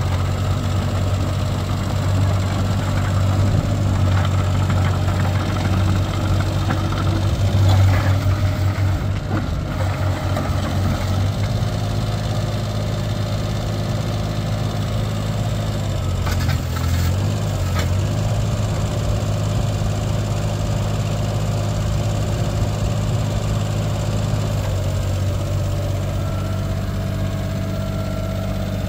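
Yanmar Super ViO20 mini excavator's diesel engine running steadily while the boom and arm are worked. The engine note shifts briefly about eight seconds in and again around sixteen seconds.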